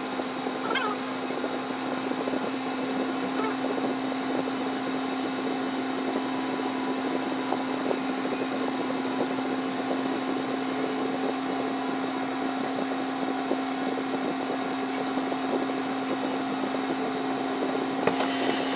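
Steady mechanical hum with a constant low tone, running on without a break.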